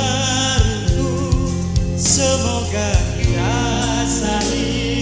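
A man singing into a microphone over amplified backing music with a steady bass line and a regular drum beat; his held notes waver with vibrato.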